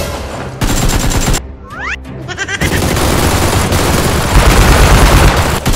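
Rapid automatic gunfire in long bursts over background music: a short burst about half a second in, then a sustained stream of rapid fire that grows louder and cuts off near the end.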